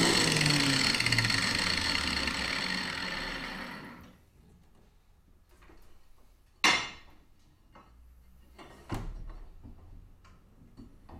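Angle grinder switched off after cutting flat steel and coasting to a stop, its whine falling in pitch and fading away over about four seconds. After that come a few sharp knocks and clanks as the cut steel is handled at the vise, the loudest one about seven seconds in.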